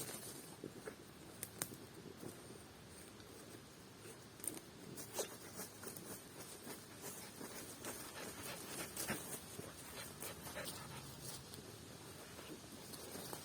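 Dogs panting, faint, with scattered soft clicks and rustles throughout.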